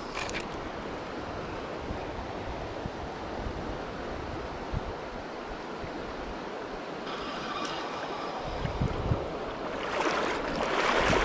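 Steady rush of a flowing river with some wind on the microphone, swelling louder near the end.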